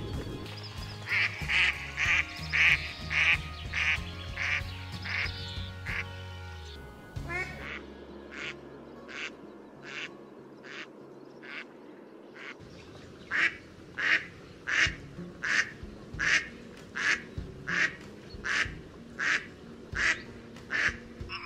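Mallard hen quacking in long runs of evenly spaced quacks, about two a second, with a short break in the middle.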